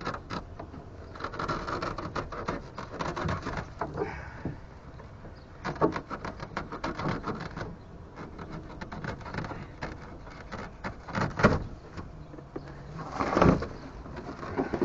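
Scattered knocks, clicks and rustling from hand work on a jon boat, with a louder flurry of knocks near the end.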